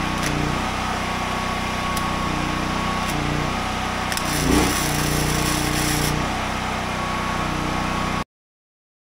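Wire-feed welder tacking a steel plate to an excavator bucket: a crackling arc about four seconds in, lasting about two seconds, over a steady low hum from a running portable generator. The sound cuts off suddenly near the end.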